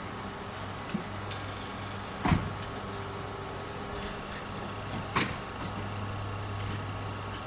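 A few sharp knocks and clunks, the loudest a little over two seconds in, from handling and fitting telescope gear onto a mount, over a steady low hum that starts about a second in and stops near the end.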